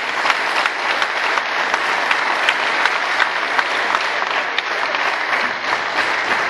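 A large crowd clapping: dense, steady applause that holds at an even level.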